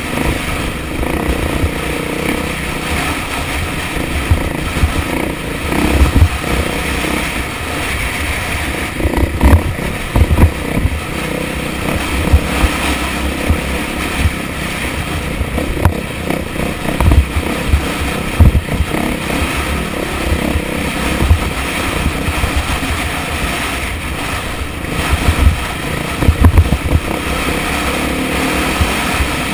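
Four-stroke single-cylinder dirt bike engine running under changing throttle while riding a rough, rocky trail, heard from a bike-mounted camera with wind noise on the microphone. Loud low thumps come now and then, several times over the ride.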